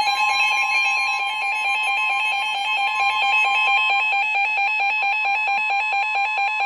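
Emergency Alert System attention signal: a loud, steady two-tone alarm with a fast flutter, the tone that announces a severe thunderstorm warning.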